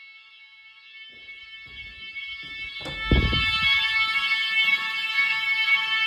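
Nugelec fire alarm sounder giving a steady, unbroken multi-tone alarm during a test. It grows louder over the first three seconds. A thump comes about three seconds in, after which the alarm is at its loudest.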